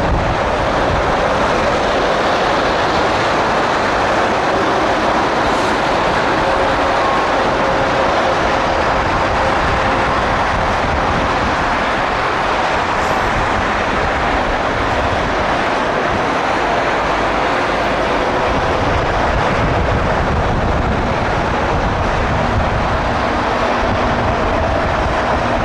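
Boeing 757 freighter's two jet engines at taxi power: a steady rushing noise with a faint steady whine.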